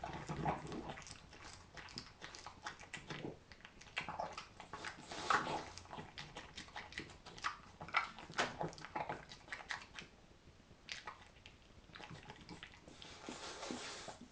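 A French bulldog chewing and eating with its head down: quick irregular crunchy clicks, broken by a few louder noisy breaths through its nose.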